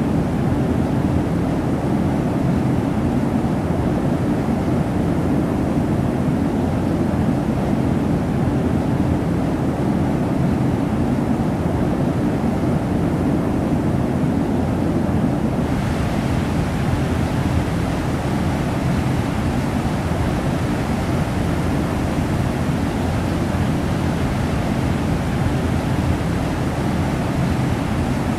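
Steady rush of a waterfall's water pouring and splashing. About halfway through it becomes hissier.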